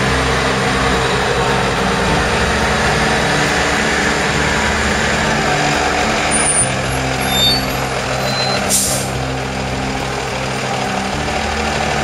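Engine of a large forklift boat lifter running steadily as it drives along carrying a boat, with a short hiss about nine seconds in.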